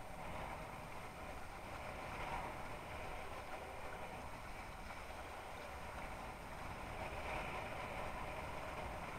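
Steady rush of water along the hull of a Mistral Superlight windsurf board sailing, with a low wind rumble on the microphone, swelling a little a couple of times.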